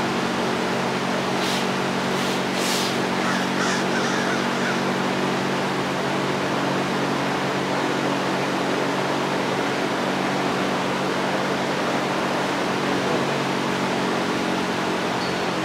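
A steady mechanical drone, several low hum tones over an even hiss, with a few short sharp clicks or scrapes in the first few seconds.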